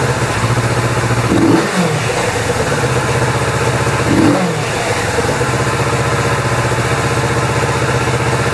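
Kawasaki Z650's parallel-twin engine idling with its pair valve blocked off. The throttle is blipped twice, about a second and a half in and again past four seconds, each rev rising and falling quickly back to idle.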